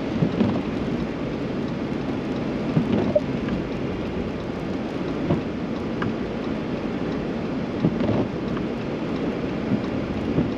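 Steady rumble of tyres and road noise inside a car driving on a wet highway, with a few light taps of rain on the windshield.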